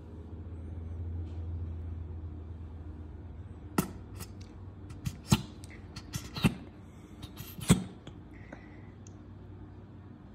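A plastic squeeze bottle of creamy sauce being squeezed over a lettuce wrap, giving a series of short, sharp pops and sputters as the sauce and air spurt from the nozzle, mostly in the middle of the stretch. A low hum sounds under the first few seconds.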